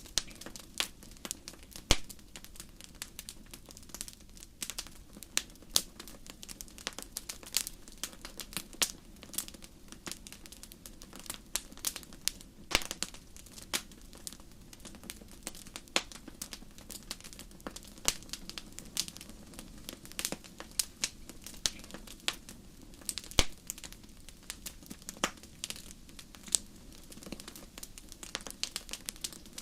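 Wood fire crackling in a fireplace: irregular sharp pops, several a second, some louder than others, over a soft steady hiss.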